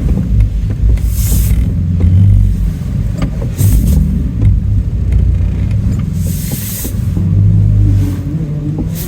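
Pickup truck running, a steady low engine and road rumble, with two short hissing whooshes, about a second in and again past the middle.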